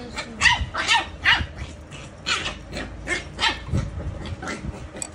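A dog barking repeatedly in short yelps, about a dozen in a few seconds, several in quick succession.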